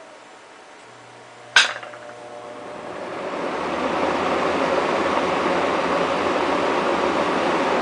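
A sharp click as the 18-inch Vornado window fan is switched on, then the fan spins up, its steady rush of air and low motor hum rising over about two seconds and holding on high speed.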